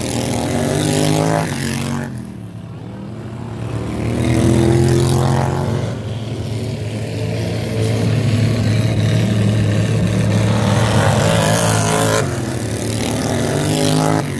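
Racing lawn mower engines running hard around a dirt track, their pitch rising and falling as the mowers pass. The sound is loudest about four to five seconds in, and a mower passes close near the end.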